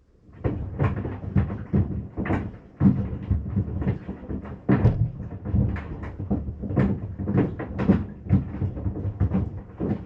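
Sandals tumbling in a Maytag washing machine drum, knocking and thudding irregularly against its sides, a few knocks a second over a low machine rumble; the knocking starts about half a second in.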